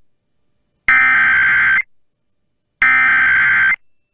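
Emergency Alert System SAME header data bursts: a harsh, buzzing electronic screech sent as repeated bursts about a second long with a second of silence between them. Two bursts are heard, the second and third of the header's three repeats, encoding the start of a child abduction emergency (AMBER Alert).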